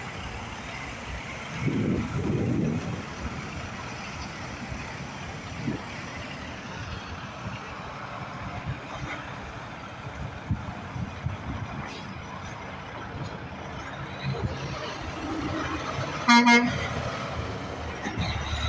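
Road traffic passing, with a vehicle rumbling by loudly about two seconds in. Near the end a vehicle horn gives one short toot of about half a second, the loudest sound here.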